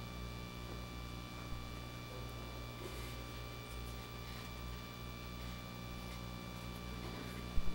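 Steady electrical hum with faint rustling, broken near the end by a couple of short low thumps.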